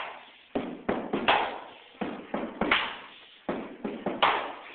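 A run of irregular sharp hits, roughly two a second, each dying away in the room's echo.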